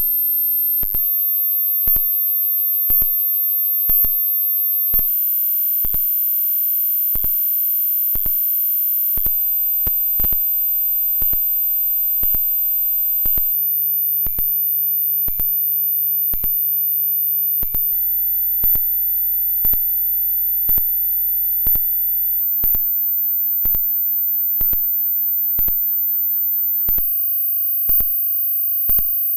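Hearing-test tone: a pure, very high sine tone held steady and stepping a little higher about every four seconds, with a click about once a second.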